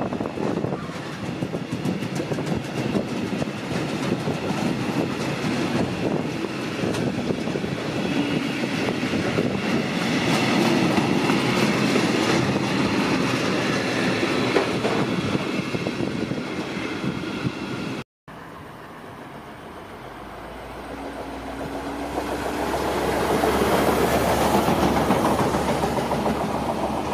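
Freight wagons rolling past on the rails with a steady clatter of wheels over the track. After a sudden break, a quieter rushing sound swells in loudness as the next train approaches.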